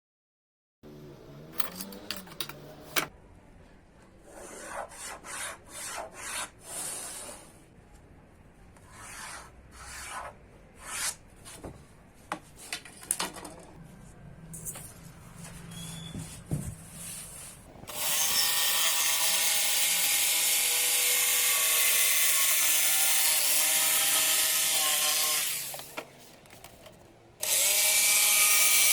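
Wood being handled and scraped, with scattered knocks, then a power tool runs steadily for about seven seconds, stops, and starts again near the end.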